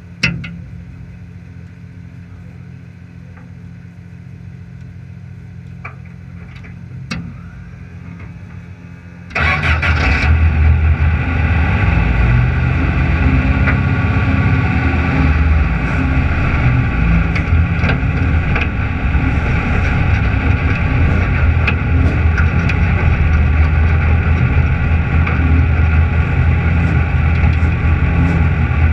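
Off-road race car's engine starting about a third of the way in, then running steadily close by. Before it starts there is only a low steady hum.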